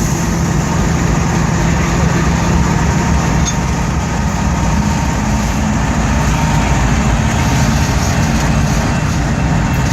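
Freight train's diesel locomotive running steadily, its low engine hum over the broad rumble of the train.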